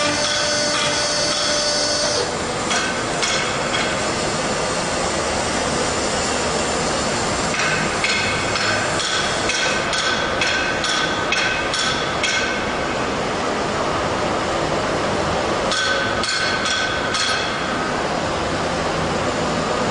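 Clusters of sharp metal-on-metal clinks and taps, some with a brief ring, as a stamping die is handled and fastened in a vertical hydraulic press, over a steady mechanical hum.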